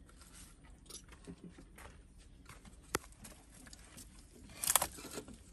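Faint scattered taps and scuffs, with one sharp click about three seconds in and a brief louder rustle near the end.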